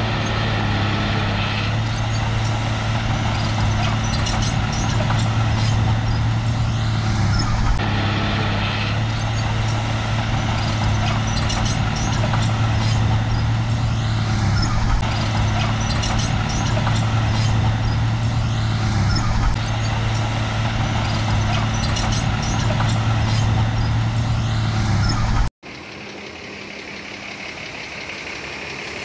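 Shantui crawler bulldozer's diesel engine running steadily under work, with scattered light clanks. Near the end the sound cuts abruptly to a quieter engine.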